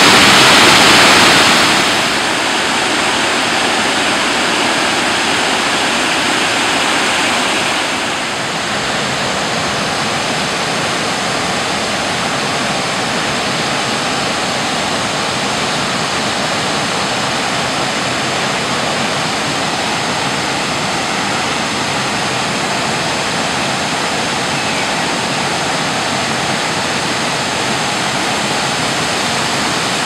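Waterfall cascading over rock ledges: a steady rush of falling water, loudest for the first two seconds, dropping a step about two seconds in and again at about eight, then even.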